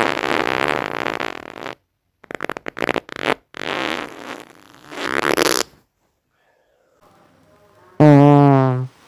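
A string of human farts: one long sputtering one, a quick run of short pops, then two more. Near the end comes a loud, deep, steady-pitched bodily sound lasting about a second.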